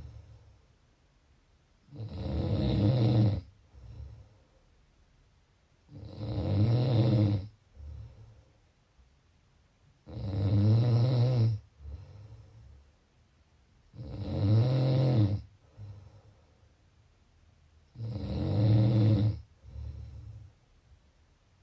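A person snoring in slow, regular breaths: five loud snores about four seconds apart, each followed by a shorter, quieter breath about a second later.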